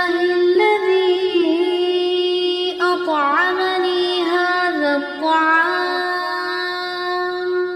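A single voice chanting a slow, drawn-out melody of held notes with ornamental pitch turns, in a few long phrases, fading out near the end.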